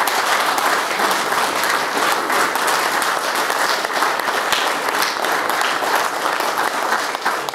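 Audience clapping steadily, stopping near the end.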